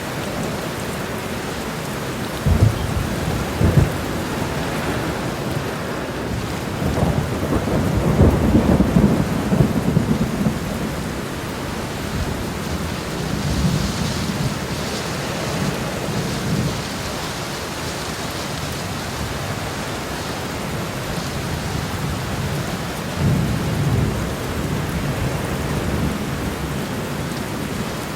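Heavy rain falling steadily on a road, an even hiss, broken by low rumbling surges: two short thumps near the start, a longer swell about a third of the way in that is the loudest, and two more later on.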